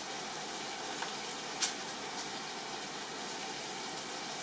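Chicken tikka frying in oil in a pan: a steady sizzle, with a couple of light clicks in the middle.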